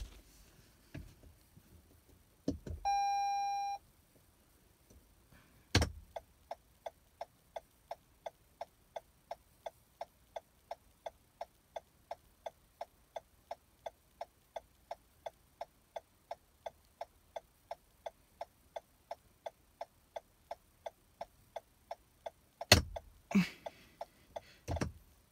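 2021 Toyota RAV4 cabin: a single electronic chime of about a second, then a click as the turn signal stalk is moved. The turn signal then ticks steadily at about two to three clicks a second for some sixteen seconds and stops with a louder click near the end, followed by a couple of knocks.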